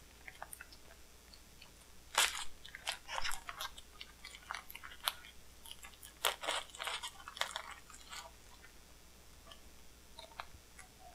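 Plastic wrapping and packing tape on a package end crinkling and crackling as it is handled and picked at by hand: irregular crackles and clicks, loudest about two seconds in and again around six to seven seconds.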